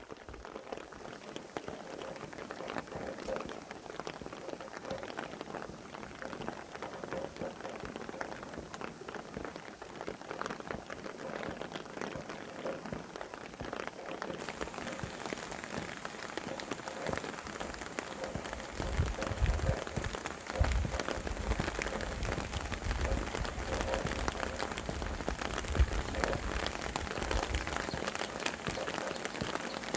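Steady rain falling, with many separate drops ticking through a continuous hiss. From a little past halfway, low gusty rumbles of wind come and go.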